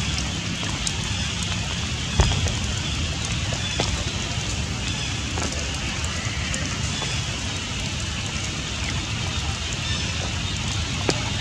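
Steady rain falling through forest leaves, with many scattered sharp drip taps; one louder tap about two seconds in.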